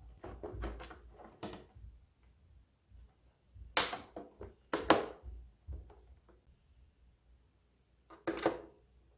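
Clusters of sharp clicks and knocks, like hard plastic parts of a cassette radio boombox being handled and set down. The loudest come about four and five seconds in, with another near the end.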